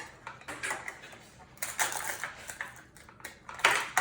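Small plastic toy pieces and packaging being handled: a run of light clicks and crinkling, with a louder crinkly rustle near the end.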